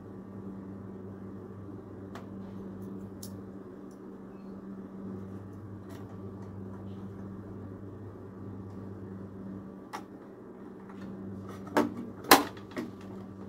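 Hands handling the plastic parts of a sewing machine: a few faint clicks over a steady low hum, then a couple of sharp plastic knocks near the end, the loudest sounds here.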